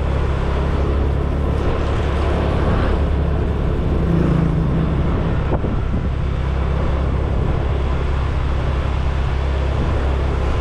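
Motor scooter running while being ridden along a road: a steady low engine drone with road noise, swelling briefly about four seconds in.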